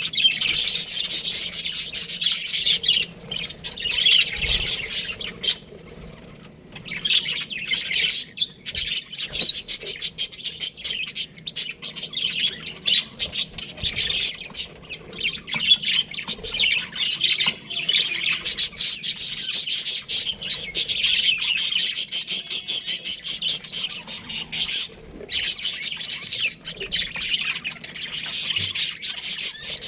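A flock of budgerigars chirping and chattering in a dense, rapid stream of high calls, with brief lulls now and then.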